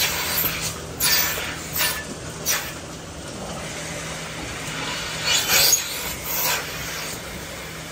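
Steady low hum of dairy parlour machinery under irregular close-up rubbing and swishing noises from hands and clothing at work.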